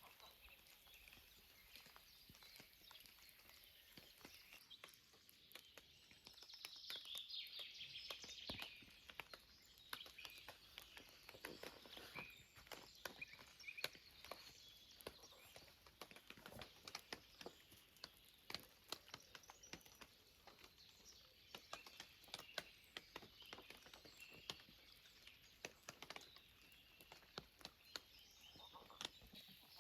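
Faint outdoor ambience: scattered, irregular light ticks and taps throughout, with birds chirping, most clearly about seven seconds in.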